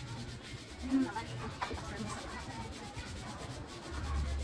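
Hands scrubbing the rear wheel of an NS200 motorcycle during a hand wash: steady rubbing and scrubbing, with a single sharp click about a second and a half in.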